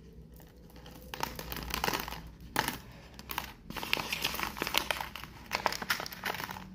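Crumpled paper wrapper crinkling as it is handled and folded closed, with many small crackles and a short pause about halfway.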